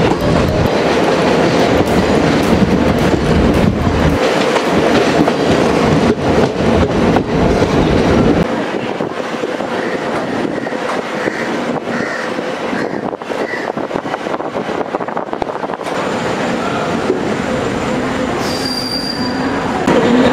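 Deccan Queen express train's wheels running on the rails and across the points, loud clattering with squealing. About eight seconds in it turns quieter. There is a short high squeal near the end.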